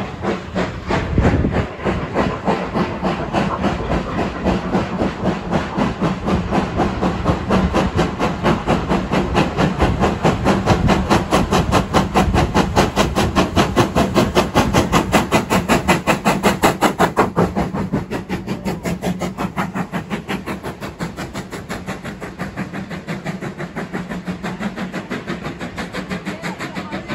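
Steam locomotive exhaust beating in rapid, even chuffs as the train works past, growing louder to a peak about two-thirds through, then fading.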